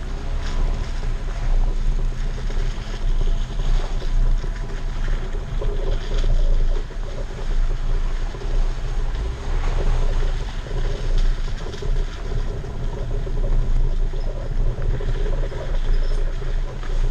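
Off-road vehicle on large mud-terrain tires driving along a dirt trail, heard from a camera mounted outside by the front tire: a steady low rumble of engine and tires on dirt and gravel, with wind buffeting the microphone.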